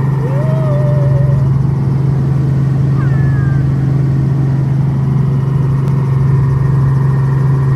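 Small helicopter's engine and rotor running with a loud, steady drone, heard from inside the cabin. A brief wavering high tone sounds near the start.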